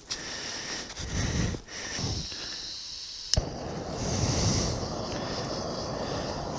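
Canister-gas camping stove being lit: some low rumbling bumps, then a single sharp igniter click a little over three seconds in, and the burner's steady hiss from then on.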